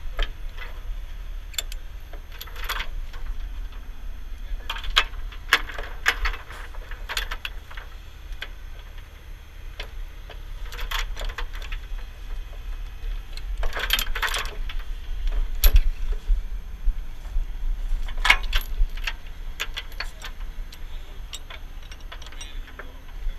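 Steel safety chains clinking and rattling in short clusters as they are hooked around a dump truck's rear bumper, over a low steady rumble.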